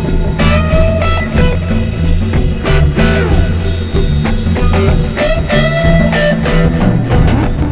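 Electric guitar, bass guitar and drum kit playing a free jazz-rock improvisation, the guitar bending and sliding notes over steady bass and busy drumming with frequent cymbal and drum hits.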